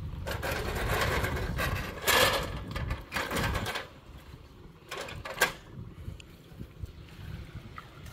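River stones scraping and rattling against each other as they are handled and set into a stone bank, loudest about two seconds in, then two sharp stone-on-stone clacks about five seconds in. A low wind rumble on the microphone lies underneath.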